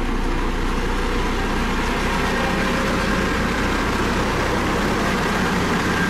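Dynapac CC522 tandem asphalt roller's diesel engine running steadily as the roller drives over fresh asphalt.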